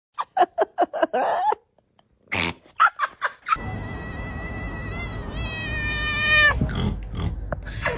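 Domestic cat vocalising: a quick run of short chirping calls, another brief run a couple of seconds in, then one long drawn-out call held at a steady pitch over a low rumble, breaking off about six and a half seconds in.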